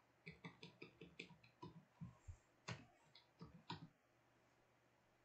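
Computer keyboard typing: a run of faint, irregular key taps that stops about four seconds in.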